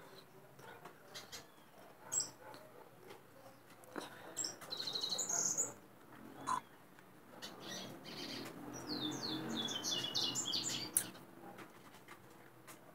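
Caged corbatita (Sporophila seedeater) singing in phrases of quick high chirps: a short one about two seconds in, a longer one around four to six seconds, and a long run of rapid notes from about eight to eleven seconds in.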